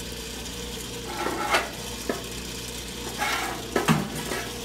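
Cooking oil gushing and splashing from a stainless filter wand into a commercial deep-fryer vat, in a few irregular surges, with a couple of sharp knocks of metal on the steel vat. Underneath, the oil filtration machine's pump motor hums steadily as it recirculates the oil through the filter.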